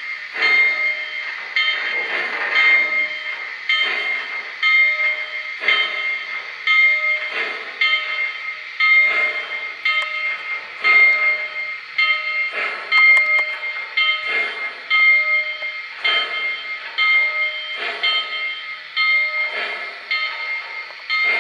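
Model 2-8-2 steam locomotive running with its sound system on: steady, rhythmic steam chuffs about once a second, with a repeating ringing tone over them as it pulls a freight train.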